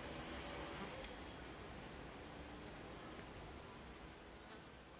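Crickets chirping: a steady, high-pitched pulsing trill, with a faint low rumble underneath.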